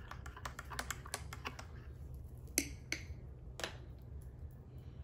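Metal spoon stirring in a glass coffee mug: a rapid run of light clinks of metal on glass for about two seconds, then three louder single clinks.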